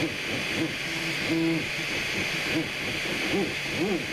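Anet A8 3D printer's stepper motors singing in short rising-and-falling whines as the print head moves back and forth laying down a layer, with one held tone partway through. Underneath runs the steady hiss of the printer's cooling fan.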